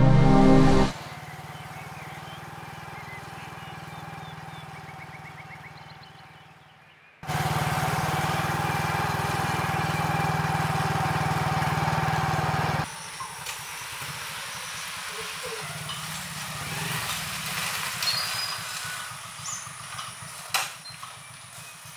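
Motorcycle engine running steadily as it is ridden, fading away over a few seconds and then coming back louder for about five seconds. After a sudden drop it gives way to quieter outdoor ambience with a few sharp clicks near the end.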